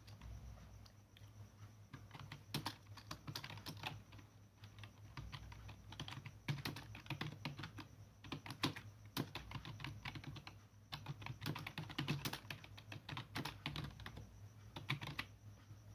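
Typing on a computer keyboard: quick, irregular key clicks in runs with short pauses, starting about two seconds in and stopping just before the end. The typing is faint.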